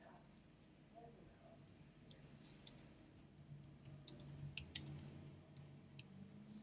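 Faint chewing of a sandwich, with a scattering of small sharp wet mouth clicks that come more often from about two seconds in, over a low steady hum.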